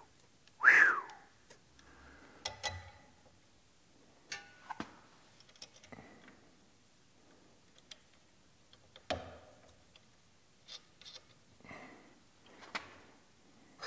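Scattered clicks and light knocks of metal and plastic parts being handled as a sprayer boom is fitted to its clamps with U-bolts and nuts. About a second in there is a short, loud squeak that falls in pitch.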